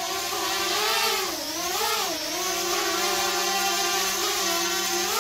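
Contixo F-30 quadcopter drone flying, its motors and propellers giving a buzzing whine. The pitch swings up and down twice in the first couple of seconds as the throttle changes, then holds steady.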